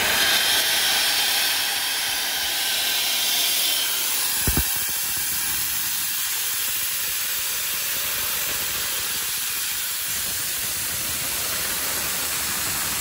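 Compressed air hissing steadily through a float-type aircraft carburetor held at full throttle, atomizing coloured water from the float bowl into a spray. A brief knock about four and a half seconds in.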